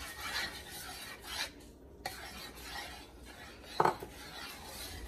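Metal spoon scraping and stirring in a ceramic bowl as flour is mixed into a liquid batter, with one sharp clink about four seconds in.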